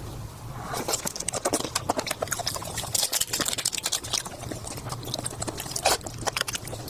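Close-miked eating: quick wet chewing and lip-smacking clicks, irregular and dense, with a couple of louder snaps near the end.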